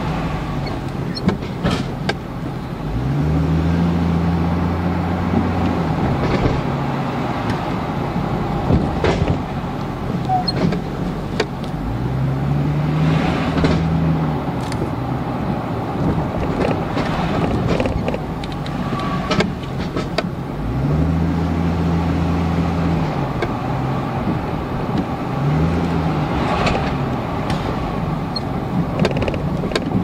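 2002 GMC Envoy driving slowly, with steady tyre and road noise and the engine note coming up and falling back several times. Sharp clunks come from the suspension every few seconds, which the mechanic suspects is a broken stabilizer link.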